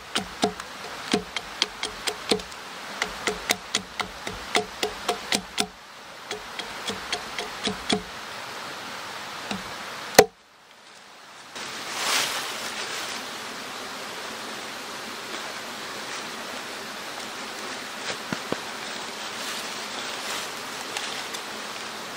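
A hatchet striking a wooden stake against a log: quick sharp knocks, about two or three a second, fading off after about six seconds, with one loud crack about ten seconds in. After that a steady rush like running water, with some rustling in dry leaves.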